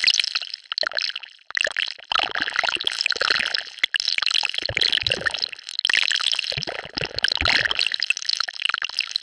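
Designed sci-fi sound effect of an alien virus mutating: a dense, wet-sounding crackle of many small ticks, with low rumbling swells that rise and fade several times and two brief breaks.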